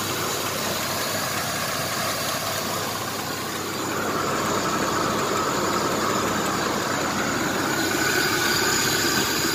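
1994 Chevrolet S10 Blazer's 4.3-litre V6 idling steadily with a ticking noise from the bottom end. The owner guesses it is the timing chain banging against the timing cover once the oil thins out and gets hot.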